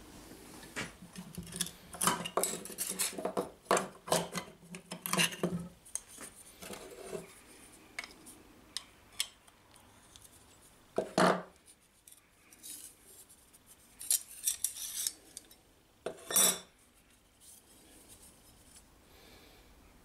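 Metal parts of a hand plane clinking and scraping as it is taken apart: lever cap, plane iron and cap iron handled and set down on a wooden bench. A quick run of clicks and rattles fills the first few seconds, then scattered clicks, with two louder knocks about 11 and 16 seconds in.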